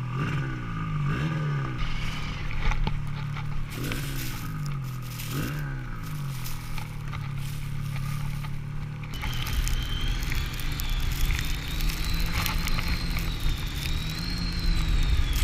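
Snowmobile engine running, its pitch dipping and recovering several times; about nine seconds in the sound turns rougher and louder, with a thin high whine over it.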